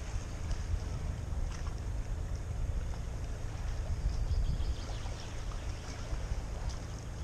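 Uneven low rumble of a sea breeze buffeting the camera microphone, with a faint hiss above it.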